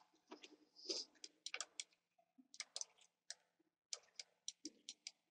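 Faint computer mouse clicks, irregular and often in quick pairs.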